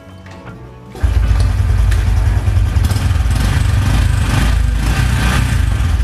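Motorcycle engine kick-started: it catches about a second in and then runs steadily.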